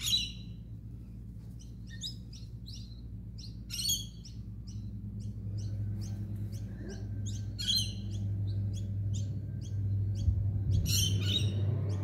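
Lorikeet giving a series of short, shrill calls, about a dozen, the loudest right at the start, about four seconds in, near eight seconds and near the end, over a steady low hum.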